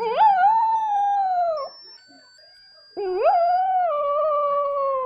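Small dog howling, two long howls about a second apart. Each swoops up quickly in pitch and then slides slowly down. The second starts about three seconds in and runs a little longer.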